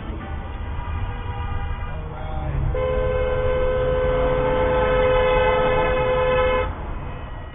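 Car horn held in one long blast of about four seconds, a steady two-tone note, over the low rumble of road noise from a moving car.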